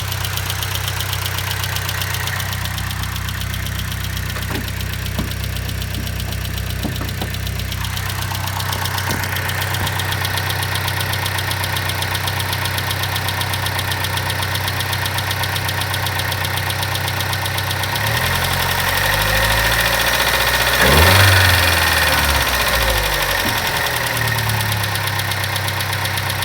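2012 Chevrolet Sonic 1.4-litre turbo four-cylinder running with a loud, fast ticking, revved up once about two-thirds of the way through and settling back to idle. The owner suspected bad lifters, clogged injectors or a failing vapor canister purge valve.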